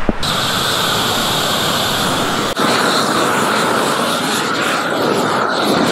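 Propane roofing torch burning steadily with a loud rushing roar, heating torch-down modified-bitumen roll roofing so it melts onto the base layer. The roar starts abruptly right at the beginning.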